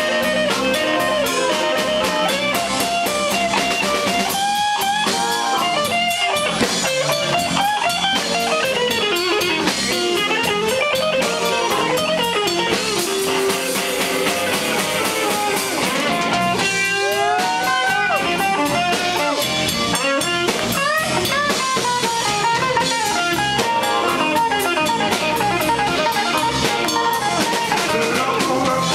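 Live electric blues band playing an instrumental passage: a lead line of bent notes, led by an archtop electric guitar, over a drum kit and bass.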